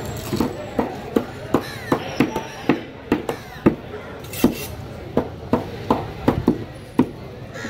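A large curved fish knife chopping through a mackerel tuna onto a wooden cutting board, making a rapid, uneven series of about twenty sharp chops. There is a short pause a little before the middle.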